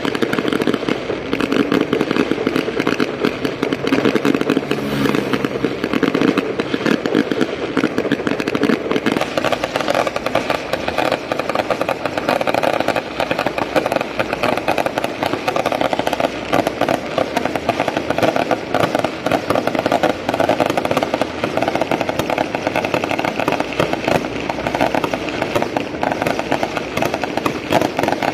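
Firecracker strings going off in a continuous, dense crackle of rapid bangs, the din shifting to a higher pitch about nine seconds in.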